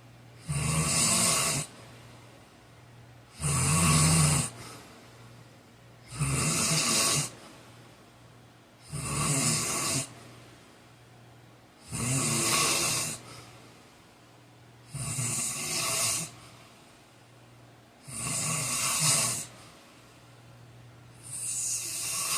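A man snoring loudly in his sleep, about eight snores in a steady rhythm, each lasting a second or so and coming about every three seconds, with a faint steady hum underneath between them.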